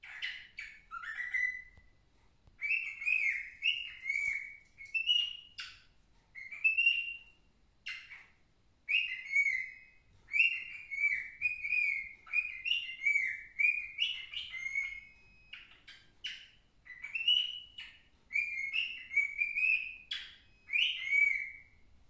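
Baby cockatiel singing non-stop: a run of short whistled phrases, each note sliding up and down, with brief pauses between phrases.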